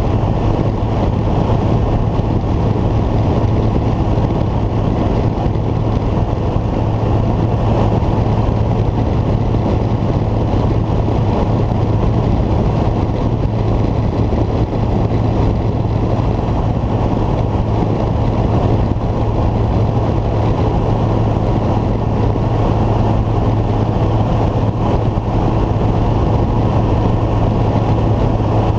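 Deutz-Fahr Agrotron 115 MK3 tractor's 4.8-litre Deutz BF6M 1012 EC six-cylinder turbo diesel (125 hp) running at a constant speed as the tractor drives along a road, a steady low engine note that neither rises nor falls.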